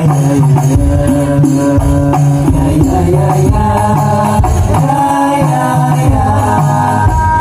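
Hadroh ensemble playing: rebana frame drums beating a steady rhythm under a sung sholawat melody.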